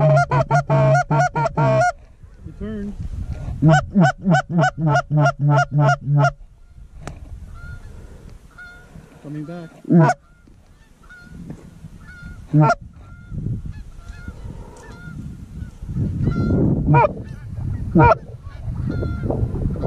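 Goose honking: two rapid runs of loud, evenly repeated honks, about seven a second, in the first six seconds, then fainter scattered honks with a few loud single ones.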